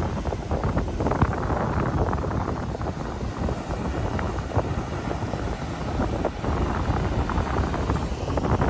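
Wind buffeting the microphone, a flickering rumble over the steady wash of ocean surf breaking along the shore.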